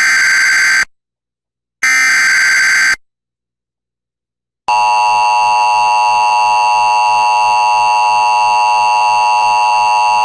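Emergency Alert System signal for a new warning: two roughly one-second bursts of warbling SAME header data tones separated by silence, then, about four and a half seconds in, the steady, harsh EAS attention tone starts and holds.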